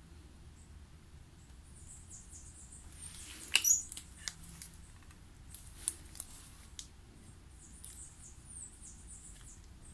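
Small hand instruments clicking and tapping during dental wax-up of a bruxism splint, with faint high squeaks from working the wax. A quick cluster of clicks about three and a half seconds in is the loudest, followed by a few single taps.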